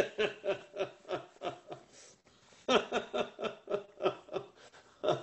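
A man laughing in two bouts of quick, rhythmic chuckles, the second starting a little under three seconds in.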